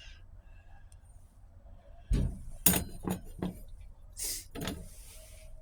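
Metal clutch parts from a 4L60E automatic transmission clinking and knocking as they are handled and pulled apart by hand. There are about half a dozen sharp knocks with some rattling, starting about two seconds in.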